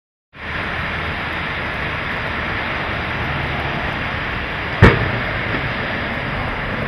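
Steady hiss of traffic on a wet, icy highway, broken once about five seconds in by a single sharp crash as sliding cars collide.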